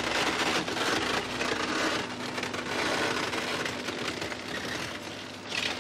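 Excavator-mounted hydraulic demolition crusher biting into concrete: continuous crunching and crackling of breaking concrete over a faint steady machine hum.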